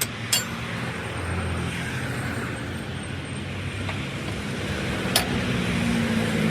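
Road traffic noise: a motor vehicle's engine running close by, a steady hum that grows a little louder toward the end, with a few sharp clicks over it.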